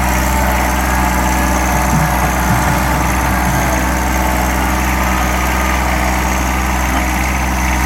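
John Deere 1023E compact tractor's three-cylinder diesel engine running steadily.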